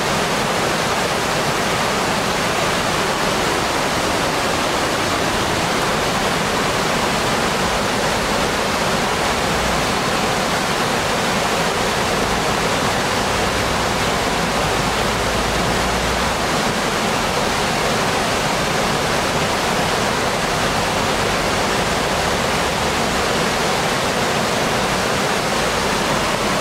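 Waterfall and river rapids: a steady, even rush of water falling over rock ledges and running over rocks.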